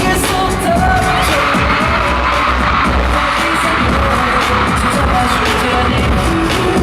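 Live K-pop concert sound recorded from the audience: loud amplified pop music with a heavy bass beat and singing.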